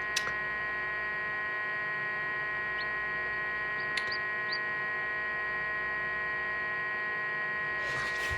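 Steady electrical hum of an egg incubator, with a few faint, short rising peeps from chicks about three to four and a half seconds in.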